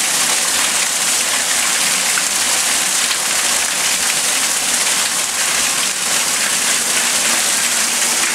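Floodwater pouring in through a broken basement window and splashing onto the flooded floor, a steady rushing with no let-up.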